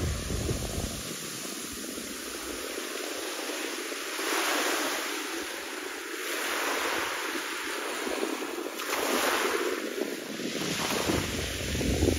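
Wind buffeting the microphone, with sea water washing and lapping. Rumbling buffets at the start and again near the end, and the hiss swells twice in between.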